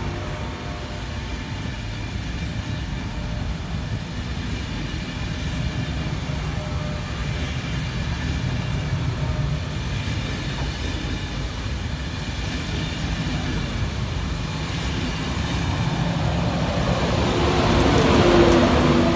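InterCity 225 express of Mark 4 coaches running past at speed: a steady rumble of wheels on rail. Near the end it grows loudest as the Class 91 electric locomotive passes close by, adding a humming tone and a brighter rush of air.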